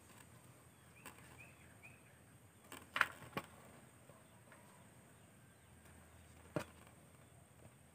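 Faint open-field ambience with a few short bird chirps about a second in and a handful of sharp clicks or taps, the loudest about three seconds in and another a little before the end.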